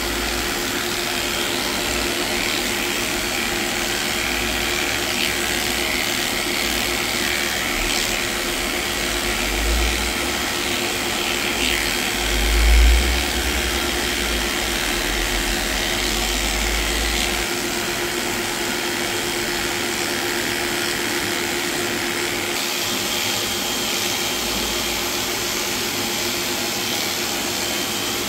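Cordless electric dog grooming clipper running with a steady hum as its blade shaves through a matted coat, with a brief low thump just past the middle.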